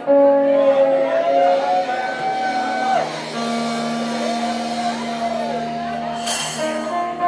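Live blues band music: a resonator guitar plays held lead notes that bend and slide in pitch over a steady low note, with a brief splash of noise about six seconds in.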